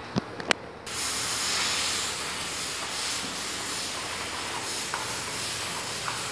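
Steam hissing steadily from a pressure cooker's open vent pipe, a jet strong enough to hold a ping-pong ball aloft; the hiss starts suddenly about a second in, after a couple of light clicks.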